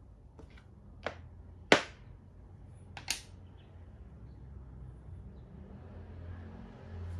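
Plastic Thai chess (makruk) pieces clacking down on a plastic board as a move is played: a few sharp clacks in the first three seconds, the loudest a little under two seconds in. A low steady hum grows louder near the end.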